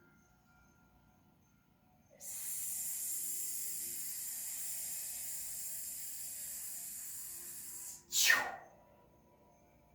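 A long, steady whispered 'heee' breath for the triple warmer healing sound, the breath pushed out as an airy hiss for about six seconds. It ends with a short, louder breath that falls in pitch, about eight seconds in.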